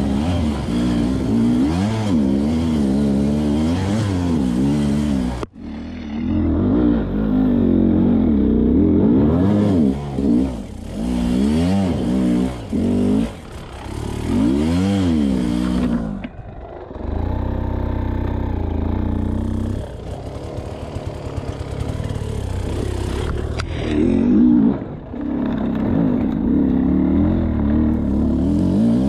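Sherco dirt bike engine revving up and down over and over under load as it climbs a steep, rocky hill, the pitch rising and falling with each burst of throttle. The sound drops out sharply for a moment about five seconds in.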